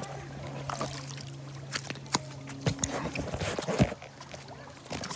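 Feet splashing and sloshing through shallow pool water, with a few sharper splashes, the loudest about four seconds in.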